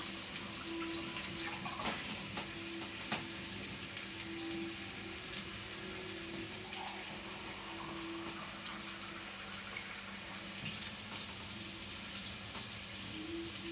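Water running from a kitchen tap to fill a vessel for boiling, with a steady hiss and a faintly wavering tone. Underneath is the crackle of food frying in a pan on the stove.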